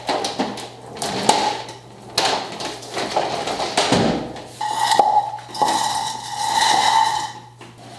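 Several quick broom sweeps across a concrete garage floor, clearing a pile of metal shavings and pine needles, about one stroke a second. About halfway through, two longer scraping sounds with a squealing ring take over.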